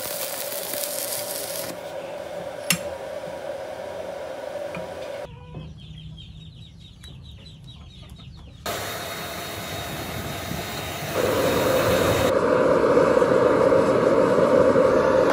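Stick-welding arc crackling briefly at the start, then chickens clucking during a quieter stretch in the middle. In the last few seconds a forge blower runs loudly and steadily, fanning the fire.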